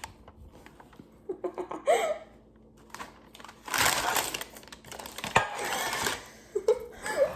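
Parchment paper rustling and crinkling as it is handled, in two short bursts, with light clicks and taps in between.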